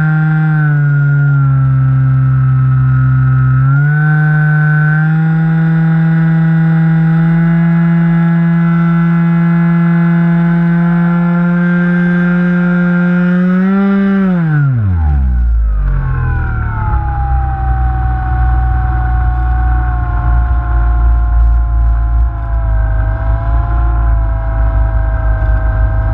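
Onboard sound of a Skywalker 1680 RC plane's electric motor and propeller running at steady high throttle, with a brief dip in pitch about 4 s in. About 14 s in the throttle is cut and the whine drops steeply in pitch, leaving wind rushing over the microphone and a fainter wavering whine.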